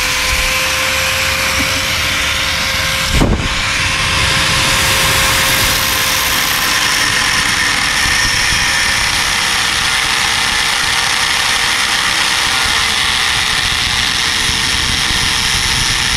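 Angle grinder with a cutting disc slicing through a motorcycle's metal underbelly exhaust: a steady high motor whine over a harsh grinding hiss as the disc cuts. There is one sharp knock about three seconds in.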